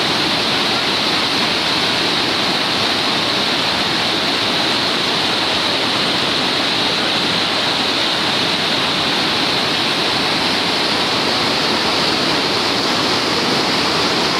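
Whitewater rapids of the Niagara River rushing, a loud, steady hiss of churning water that never lets up.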